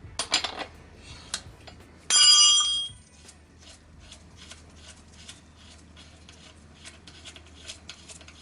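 Metal parts and tools clinking, with one piece of metal ringing out sharply for nearly a second about two seconds in, followed by a run of faint, light ticks.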